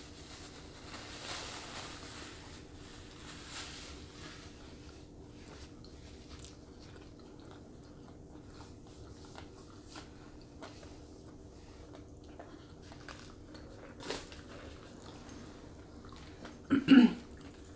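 Mouth sounds of eating a hamburger: biting and chewing, with small clicks and rustles, over a faint steady hum. A short, loud voice sound comes near the end.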